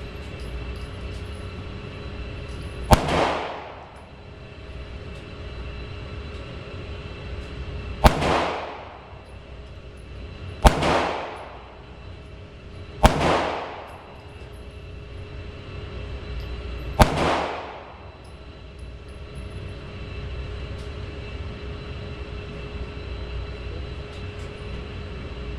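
Five single pistol shots at uneven intervals, each trailing off in an echo of about a second, over a steady background hum.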